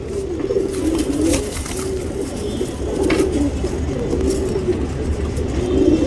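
Several domestic pigeons cooing, their low, wavering coos overlapping one another.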